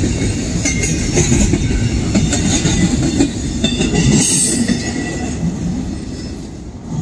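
Double-stack intermodal container train rolling past: a steady rumble of well-car wheels on the rails with clicking over rail joints and a few short high wheel squeals about four seconds in, easing off slightly near the end.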